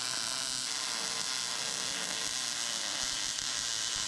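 Wire-feed (MIG) welding arc sizzling and crackling steadily as a bead is run on steel.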